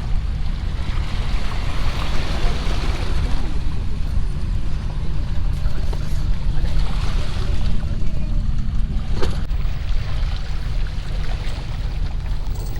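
Wind rumbling on the microphone, with an RC rock crawler's electric motor and drivetrain whirring in short spells and one sharp click about nine seconds in.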